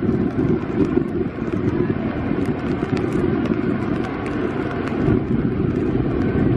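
Jet airliner's engines giving a steady low rumble as it rolls out on a wet runway just after landing, slightly louder about five seconds in. Rain ticks sharply and irregularly on an umbrella held over the microphone.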